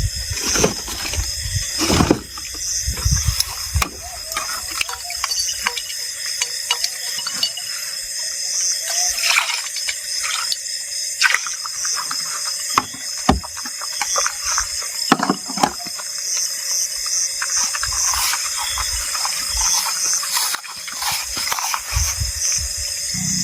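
Water splashing and running, with irregular clicks and knocks of things being handled.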